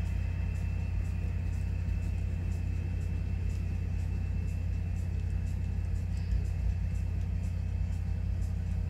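Simulated EMD SD40-2 diesel locomotives, from Broadway Limited Paragon sound decoders played through a Rolling Thunder subwoofer system, labouring with a deep steady rumble and a faint high whine as the heavy coal train struggles up the grade.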